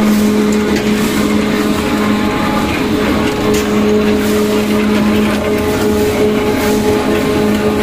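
Wire drawing machine with rolling cassettes and a pressurized lubricant-powder box running at high speed: a loud, steady mechanical hum with a strong low tone and a higher overtone over a constant rushing noise.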